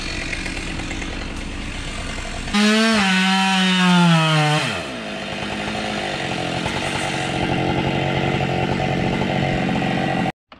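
Chainsaw revved to full throttle about two and a half seconds in, its pitch sagging slightly under load for about two seconds before it glides back down as the throttle is released. A steady engine drone runs before and after, and the sound cuts off suddenly near the end.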